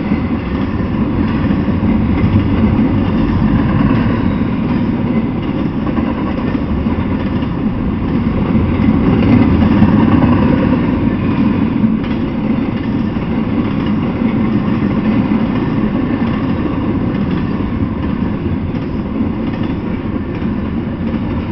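Intermodal freight train of container-carrying well cars rolling past, a steady loud rumble of steel wheels on rail. It is loudest about halfway through and eases slightly toward the end as the last cars go by.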